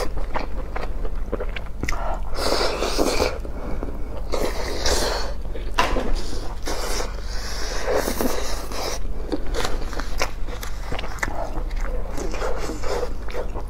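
Close-miked eating sounds: a whole roast chicken being torn apart by gloved hands and chewed, with wet smacking bites and crinkles from the aluminium foil it sits on.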